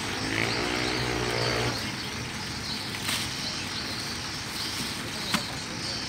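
A motor vehicle engine running for about the first second and a half, over steady outdoor background noise. Two short sharp clicks follow, about three and five seconds in, the second the louder.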